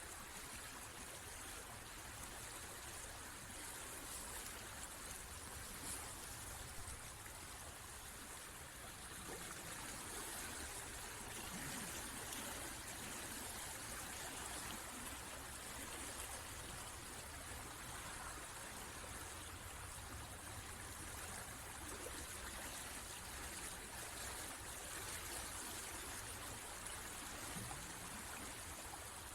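River water flowing and splashing in a steady, unbroken hiss.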